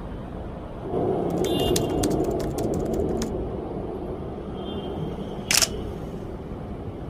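Fujifilm mirrorless camera shutter firing a rapid burst of clicks, starting about a second and a half in and lasting about two seconds, over steady street traffic noise. A brief, loud hiss-like noise comes about five and a half seconds in.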